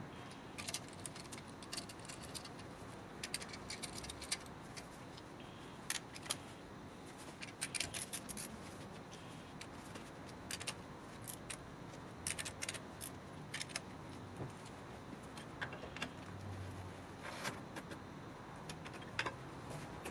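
Metal tools or parts being handled: scattered sharp clicks and clinks, some in quick runs, over a steady faint hiss.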